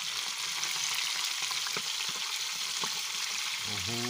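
Fish frying in a pan of hot oil: a steady sizzle with occasional small pops. A short steady hum comes in near the end.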